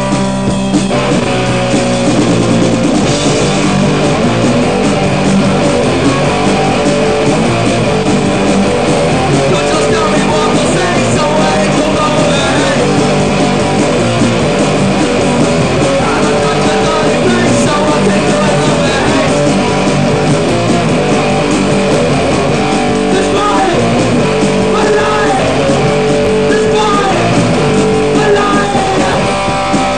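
Hardcore punk song played at a constant loud level, with electric guitar dominating.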